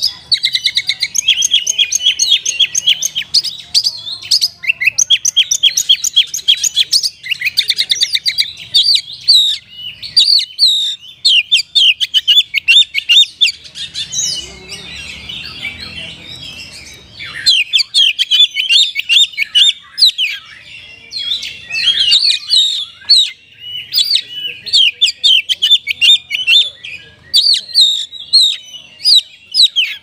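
Oriental magpie-robin (kacer) singing a loud, continuous, varied song of fast trills and rapidly repeated chirps. About halfway through, a brief noisy stretch runs under the song.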